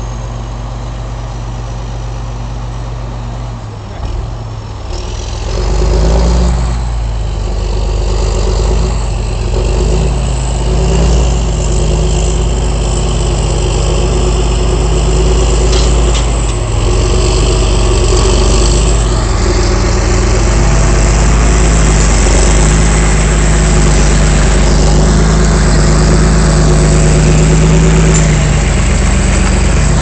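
Large John Deere tractor's diesel engine running steadily under load as it pulls a reversible plough through the soil. It gets louder about five seconds in as the tractor comes closer, and stays loud.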